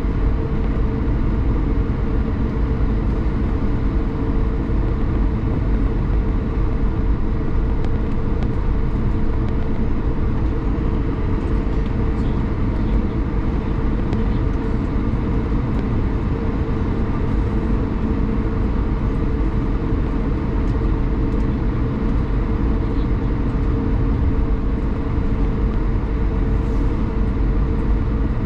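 Cabin noise of an Airbus A220-300 on the ground, its Pratt & Whitney PW1500G geared turbofans at low taxi power: a steady low rumble with a few steady hums.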